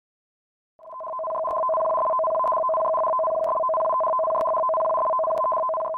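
Electronic alert tone of two steady pitches sounding together. It fades in about a second in and holds, with faint ticks about once a second. It signals the issuing of a tsunami warning.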